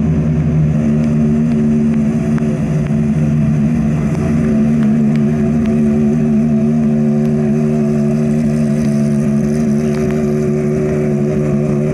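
Car engine running at a steady idle, its pitch holding level with no revving.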